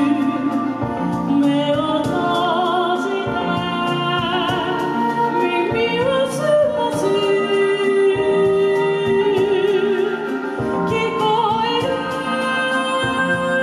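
A woman singing sustained melodic lines with a marked vibrato into a microphone, amplified through a PA, over instrumental accompaniment with a pulsing bass.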